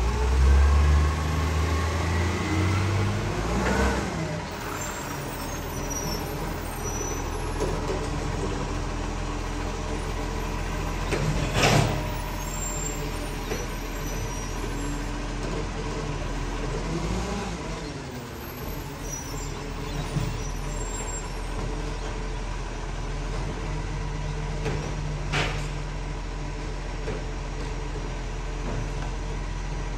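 Side-loader garbage truck's diesel engine pulling away from the kerb and running on, loudest and rising in pitch over the first few seconds. Two short air-brake hisses, about 12 seconds in and again near 25 seconds.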